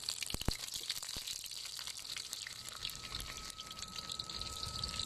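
Garlic cloves, dried chillies and star anise frying in hot oil in a wok, a steady fine crackle and sizzle. A few sharp clicks come in the first second, and a thin steady high tone starts about halfway through.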